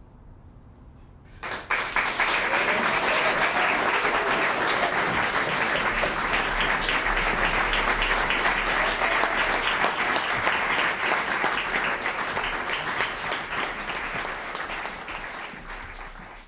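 Audience applauding: after a brief hush, many hands start clapping about a second and a half in, hold steady, then die away near the end.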